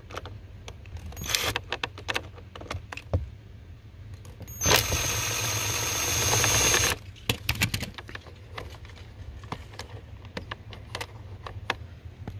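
Cordless drill driving a self-tapping screw into a car's plastic lower dash panel. A short whir comes about a second and a half in, then a longer run of about two seconds that swells slightly and stops abruptly. Clicks and handling knocks fall around the runs, over a steady low hum.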